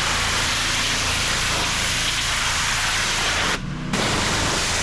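Pressure-washer wand spraying a high-pressure jet of water onto the algae-covered lower panel of a screen enclosure, a steady loud hiss with a low hum underneath. The spray cuts out briefly about three and a half seconds in, as if the trigger were let go, then starts again.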